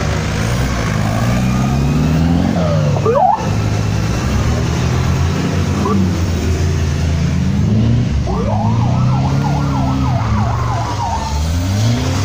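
Off-road competition 4x4's engine revving hard and unevenly, rising and falling in pitch as the truck works its wheels through mud. A shrill warbling whistle-like tone sounds over it for a few seconds near the end.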